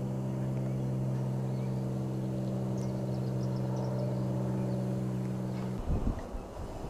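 A steady, low mechanical hum that cuts off abruptly about six seconds in, followed by wind buffeting the microphone.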